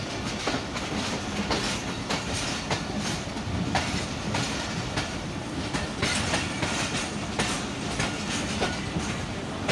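Passenger train coach wheels clattering over rail joints and points in a run of uneven clicks, over the steady rumble of the moving train, heard close beside the coach from its doorway.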